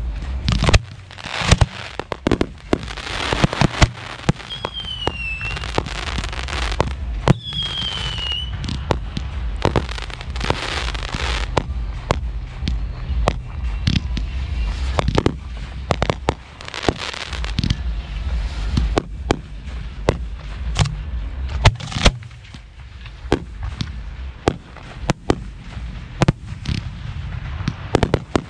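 Professional 1.3G aerial firework shells being fired: a rapid, irregular run of launch thumps and sharp bursts with crackling, and two short falling whistles about five and eight seconds in.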